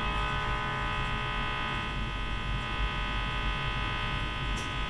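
The loudspeaker of a 1947 Mantola R-654-PM tube radio gives a steady hum with many overtones. The set is newly recapped and is coming up at reduced voltage on a Variac and dim-bulb tester.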